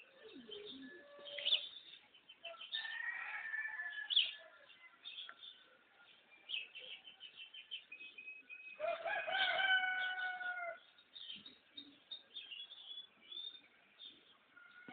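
Dawn chorus of small birds chirping throughout, with a rooster crowing once, a long drawn-out call of about two seconds, a little past the middle.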